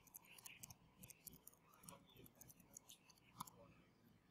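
Faint keystrokes on a laptop keyboard as a web address is typed: a quick, irregular run of light clicks, with one louder key press about three and a half seconds in.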